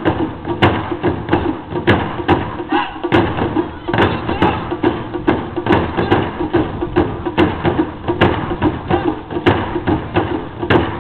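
Taiko drums played Miyake style: several barrel drums struck hard with wooden bachi in a fast, steady rhythm of about three strikes a second.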